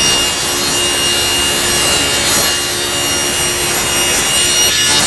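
Power tool cutting wood: a loud, steady machine noise with a constant high whine running through it.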